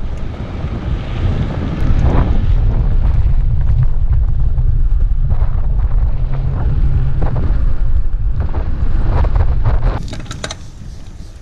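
Wind buffeting an action camera's microphone while riding a mountain bike on a dirt road, a dense, steady rumble with scattered clicks and rattles from the bike on the rough ground. The rumble drops away about ten seconds in, leaving quieter clicking.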